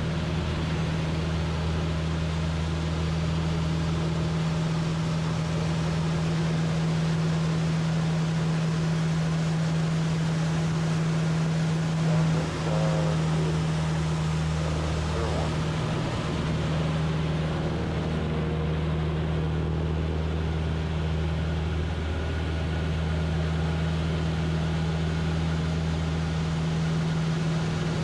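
Van's RV-8's piston engine and propeller droning steadily in flight, with a brief wobble in level about twelve seconds in.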